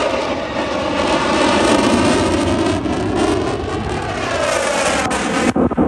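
Aircraft flying past overhead, a loud continuous rush of engine noise with a sweeping, phasing shift in pitch as it passes. There are a couple of brief drop-outs near the end.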